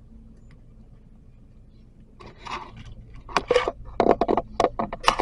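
A run of irregular, close crackling and scraping noises that starts about two seconds in and grows louder, with several sharp loud scrapes near the end.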